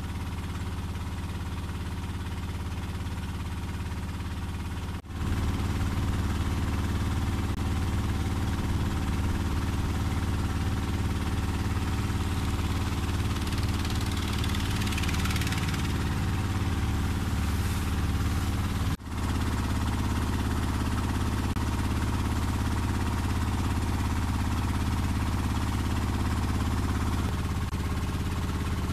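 Engine of a motorised wooden river boat running steadily underway, a dense low drone with evenly spaced harmonics. It is louder after a brief break about five seconds in, and a brighter rush of water noise swells around the middle as another engine boat passes close by.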